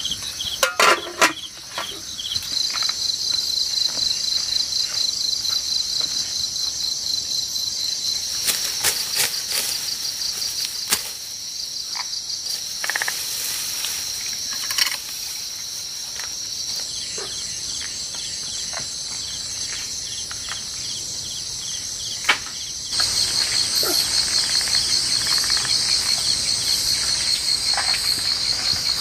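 A chorus of insects trilling steadily, getting louder about three-quarters of the way through, with a few scattered clicks and knocks near the start and in the middle.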